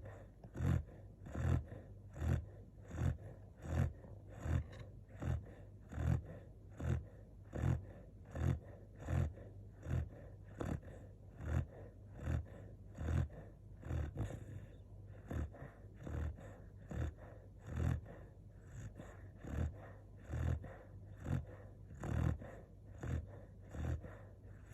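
Five-month-old Bernese Mountain Dog puppy snoring, a short snore about every three-quarters of a second in an even rhythm.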